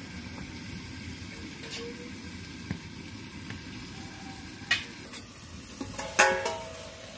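Chicken curry sizzling in a kadai covered with a stainless-steel plate, a steady frying hiss with a few light clicks. About six seconds in comes a loud metallic clang with brief ringing as the steel plate lid is shifted on the pan.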